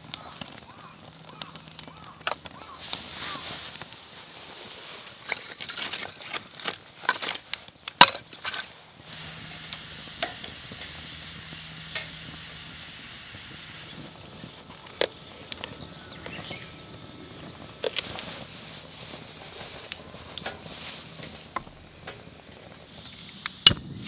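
Small kindling fire of dry conifer twigs crackling with many sharp pops as it catches. From about nine seconds in, the flames settle into a steadier hiss with scattered pops.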